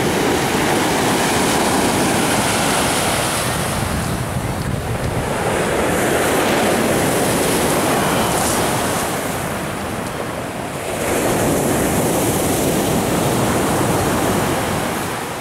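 Surf breaking and washing over a pebble beach, a continuous rush of water that swells and eases with each set of waves.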